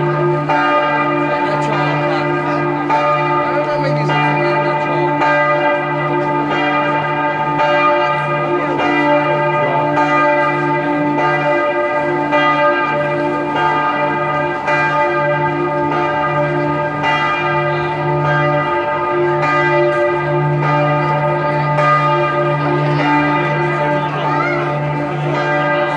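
A single large tower bell swung and ringing, struck about once a second. Its low hum and higher overtones carry on between strokes.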